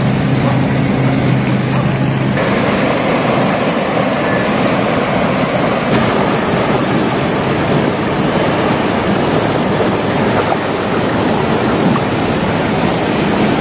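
Swollen brown floodwater rushing under a concrete bridge, a loud, steady rush of water. For the first couple of seconds a low engine hum is mixed in.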